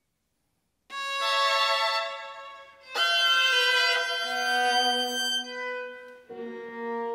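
Violin and viola playing contemporary classical chamber music. After about a second of silence, two loud, sudden bowed attacks come about two seconds apart, each followed by held notes, and a softer new phrase enters near the end.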